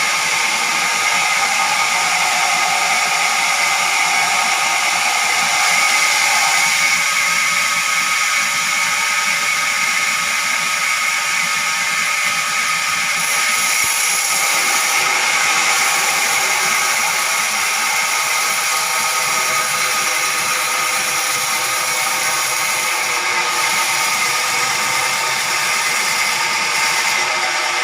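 Sawmill saw running steadily through wood: a continuous, even whir with no breaks.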